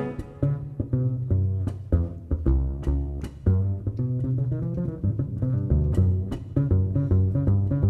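Upright double bass playing a plucked jazz solo, the full big band having dropped out just at the start, with sharp light ticks from the drum kit behind it.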